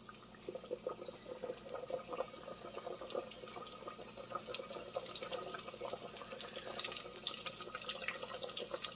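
Battered chicken deep-frying in hot peanut oil in a stainless steel pot: a steady sizzle full of small crackling pops, starting as the piece goes into the oil.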